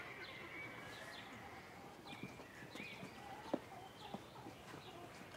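Quiet rural outdoor ambience: small birds chirping on and off, with a few scattered knocks, the sharpest about three and a half seconds in.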